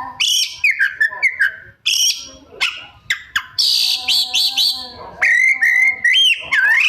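Oriental magpie-robin (kacer) singing a fast, varied song of clear whistles, sweeping up-and-down notes and short chirps and clicks. It is full song, with mimicked phrases of other birds worked into it.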